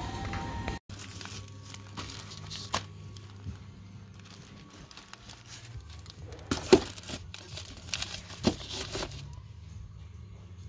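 Hands handling paper-and-foil-wrapped chocolate bars, the wrappers crinkling, with a few sharp knocks as the bars are set down on a wooden shelf. The loudest knock comes about six and a half seconds in, and another about eight and a half seconds in.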